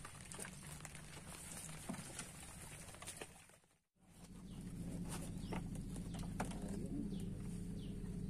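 Outdoor ambience over water: a steady low hum with small clicks and taps, cut out for a moment about four seconds in. In the second half a few short, falling bird chirps sound over the hum.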